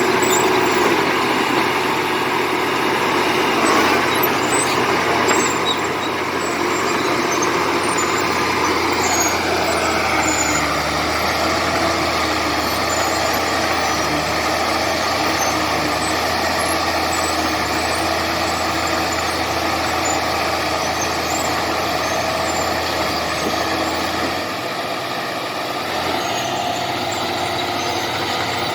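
Komatsu D70LE crawler bulldozer's diesel engine running steadily under work, its pitch falling about nine seconds in.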